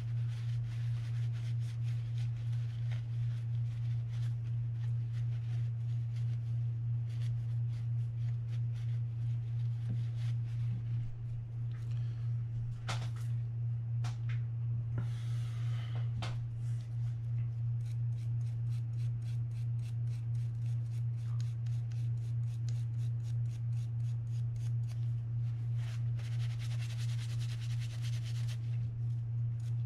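Paper towel rustling and rubbing as grease is wiped off a Penn Spinfisher 750SSM reel's main gear, with small clicks of parts being handled and two longer stretches of rubbing, one around the middle and one near the end. Underneath is a steady low hum with a slight regular throb.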